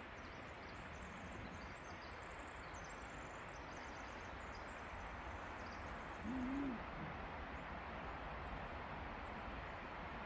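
Steady rushing of a fast-running river, with faint high bird chirps and one short, low hoot about six seconds in.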